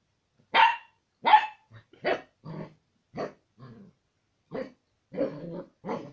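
Old English Sheepdog puppy barking at its own reflection in a mirror: two loud barks in the first second or so, then a run of shorter, quieter barks.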